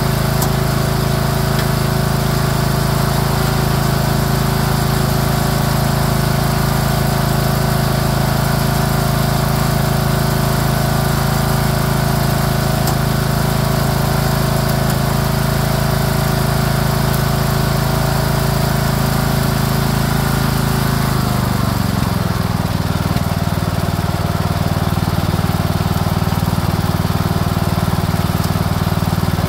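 Craftsman LT3000 lawn tractor engine running at a steady speed. About two-thirds of the way through, it slows to a lower note and keeps running.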